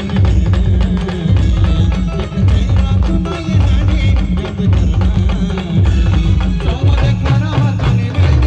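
Indian brass band playing a song at full volume: heavy, driving drum beats underneath a wavering melody on wind instruments.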